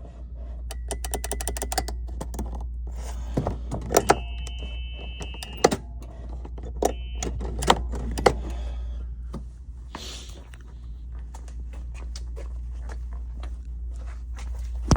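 Hand work on a golf cart's forward/reverse switch and wiring: a quick run of light clicks, then several sharp clicks and knocks, over a steady low hum.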